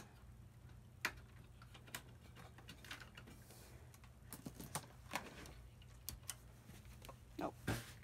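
A few faint, scattered clicks and taps from hands working a desktop PC's case and keyboard during a boot attempt, over a low steady hum.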